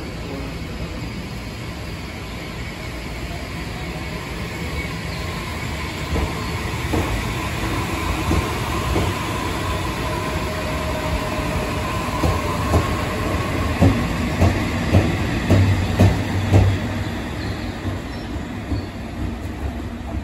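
E493 series electric unit coupled with an EF64 electric locomotive running past at low speed. The running noise builds, with a high squealing tone through the middle. In the second half the wheels knock over rail joints, about twice a second, and the sound fades near the end.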